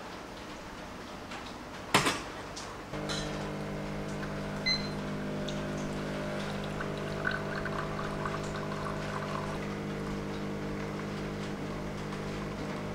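Home espresso machine pulling a shot: a sharp click about two seconds in, then the pump starts a steady hum about a second later and runs on while espresso dribbles into a glass, stopping just before the end.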